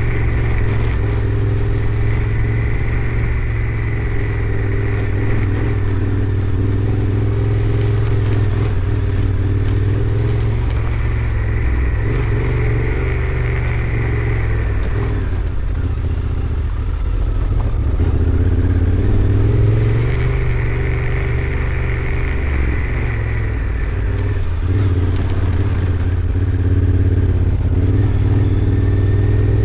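Honda Africa Twin 1100's parallel-twin engine running as the motorcycle is ridden, its note rising and falling with the throttle and easing off briefly about halfway through.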